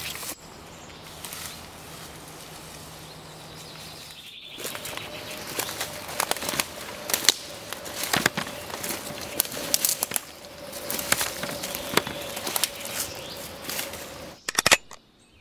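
Footsteps crunching and rustling through dry leaves and forest undergrowth, an irregular run of crackling steps starting about four seconds in. A quick cluster of sharp clicks comes near the end.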